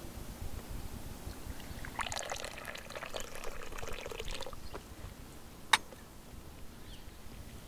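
Steaming hot water poured from a cast-iron teapot into a cast-iron teacup, a trickling pour lasting about two and a half seconds. About a second after it stops comes one sharp clink as the pot is set back on its metal stove.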